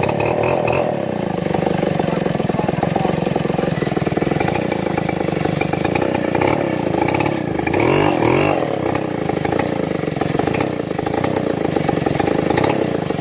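An engine running steadily, revving up and back down briefly about eight seconds in.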